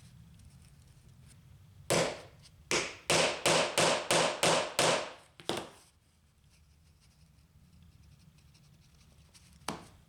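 A run of about eight quick scraping strokes on wood, each starting sharply and fading fast, then a single click near the end.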